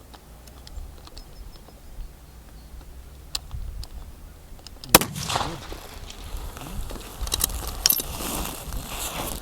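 A single target-rifle shot cracks about five seconds in, after a few faint clicks, and is followed by several seconds of clattering and rustling.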